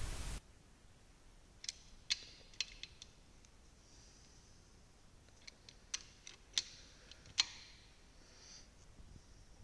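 Scattered sharp metallic clicks and ticks, about a dozen at irregular spacing, the loudest about seven seconds in: a torque wrench and socket being worked on the bolts of a BMW M54 engine's crankshaft. A burst of hiss cuts off suddenly at the very start.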